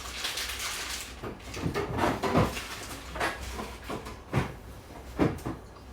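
A few separate knocks and clatters of things being handled in a kitchen, with a rustling noise in the first second.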